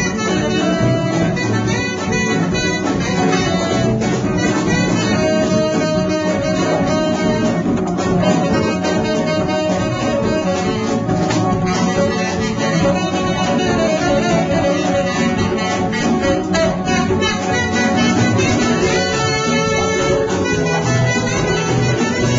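A live Latin band playing an instrumental passage, with saxophone and trombone lines over drum kit, electric guitar and keyboard.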